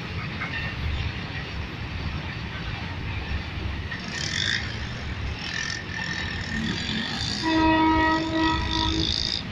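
Freight train rumbling as it moves away along the track. About seven and a half seconds in, a loud multi-tone horn sounds for about a second and a half.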